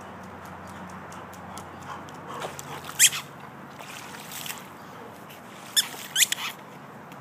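Golden retriever whining in short, high-pitched cries that rise in pitch: one about three seconds in, then two close together near six seconds.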